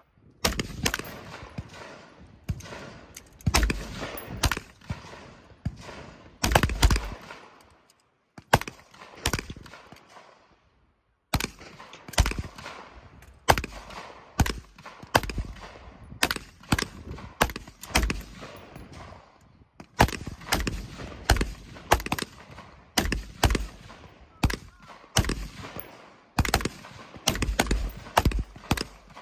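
Rapid, irregular gunfire from several shooters firing at once, shots overlapping and uneven in spacing, broken by a couple of short silent gaps about a third of the way in.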